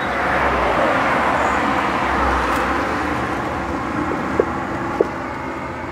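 Highway traffic passing close by: a vehicle's tyre and engine noise swells over the first couple of seconds and slowly fades away. Two short light clicks come near the end.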